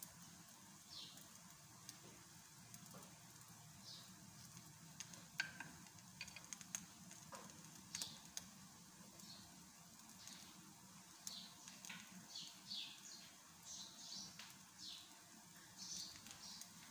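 Faint crackling and small pops of an egg paratha frying in a pan. In the second half, short high chirps of birds come in, repeating several times.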